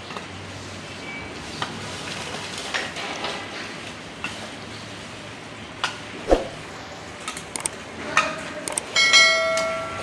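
Lumps of charcoal clinking and knocking as they are taken from a metal bowl and set down by hand, with scattered light clicks and one louder knock about six seconds in. Near the end a ringing metallic tone holds for about a second.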